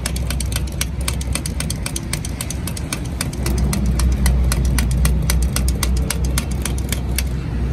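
A steady low engine drone with a rapid, even run of sharp ticks over it; the ticking stops near the end.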